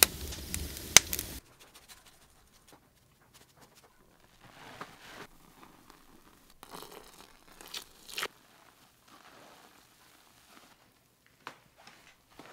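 Wood fire crackling with sharp pops in a brick oven for the first second or so, then soft, quiet rustling as liquid is poured into flour and dough is mixed by hand in a wooden trough.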